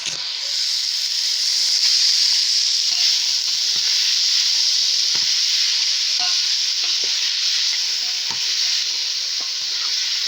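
Chopped onions, tomatoes and other vegetables sizzling loudly and steadily in hot cooking oil in a pan, with scattered light clicks of a utensil stirring them.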